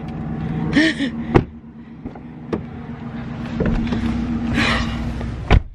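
Pickup truck engine idling steadily, with knocks and rustling as someone climbs in. A loud thump about five and a half seconds in as the door shuts, after which the engine hum drops away.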